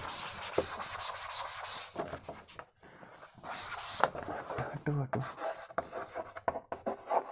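Blackboard duster wiping a chalkboard in quick rubbing strokes, in two spells, then chalk scratching on the board near the end as writing begins.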